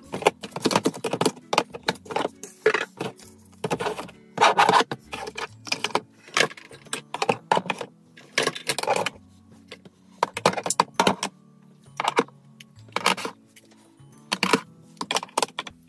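Plastic makeup compacts and palettes clicking and clacking as they are picked up and set down in a drawer, many short knocks at irregular intervals, over background music with a low bass line.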